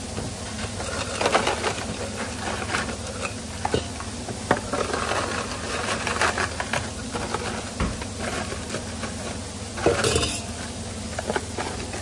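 Fries tipped from a stainless-steel bowl into a cardboard takeaway box: irregular rustling and scraping of fries and cardboard with clinks of the metal bowl, over a steady low hum.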